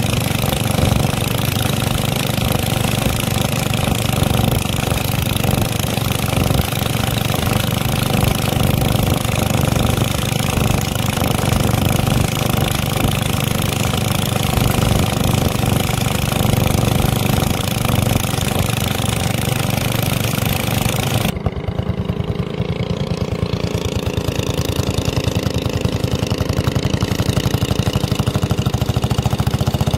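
A tour boat's engine runs steadily under a broad rushing hiss. About two-thirds of the way through, the hiss cuts off suddenly and the engine carries on with a wavering hum.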